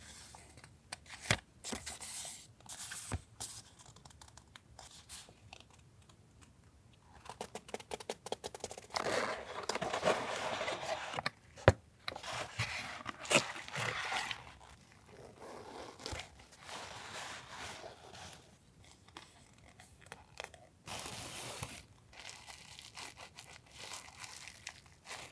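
Stationery packaging being handled and opened: crinkling and tearing, with scattered sharp clicks and taps. The rustling is densest and loudest in the middle, with a couple of sharp snaps, then thins out to lighter handling.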